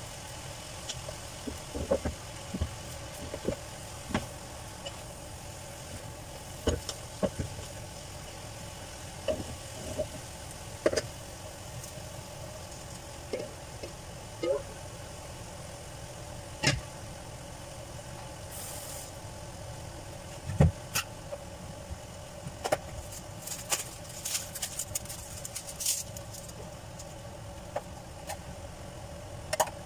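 Wooden spoon knocking and scraping against a metal pan while stirring bean sprouts and vegetables, irregular knocks every second or two, over a steady low hum.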